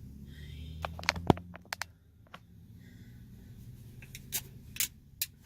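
Several sharp clicks and knocks in two clusters, about a second in and again near the end, over a low steady hum.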